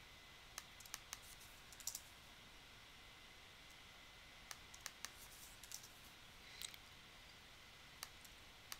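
Faint, scattered clicks of a computer mouse, about a dozen, some in quick pairs, over near-silent room tone.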